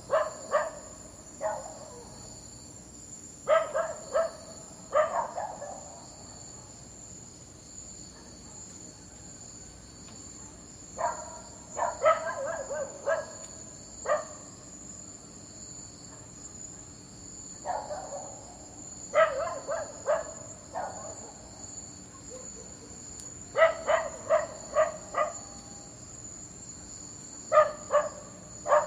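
A dog barking in runs of two to six barks, with gaps of several seconds between the runs. Under the barks runs a steady high-pitched chirring of insects such as crickets.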